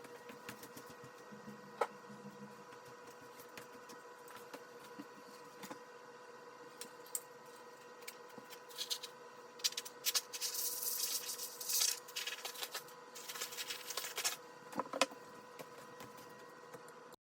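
Scattered small clicks and two stretches of rubbing over a steady faint hum, typical of hands working on hardware.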